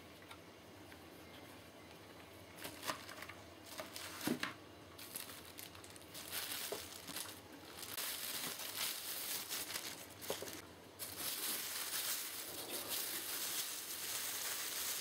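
Clear plastic wrapping bag crinkling and rustling as a new kettle is pulled out of it, starting a few seconds in and growing louder. A couple of light knocks come just before.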